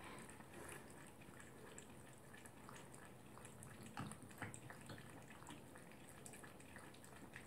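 Faint lapping and dripping as a poodle drinks from the dish of a bottle-fed water dispenser, with a few soft ticks.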